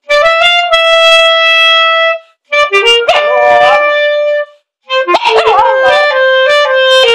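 A clarinet played in three phrases of held notes with short breaks between them, and a puppy howling and barking along over it, its cries wavering up and down against the notes.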